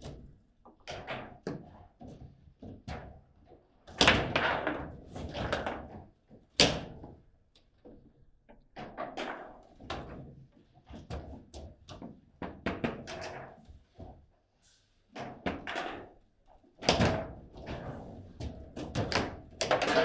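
Table football being played: irregular sharp clacks and thuds of the ball striking the figures and the table's walls, with heavier bangs from rods and players' men slamming.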